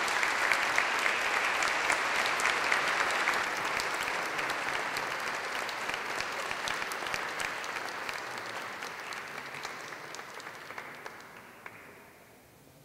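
Audience applauding, a dense patter of clapping that slowly dies away over the last several seconds.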